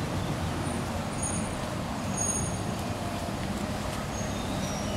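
Steady low outdoor rumble with a faint hum, with a few faint, brief high-pitched chirps about a second in, around two seconds in and near the end.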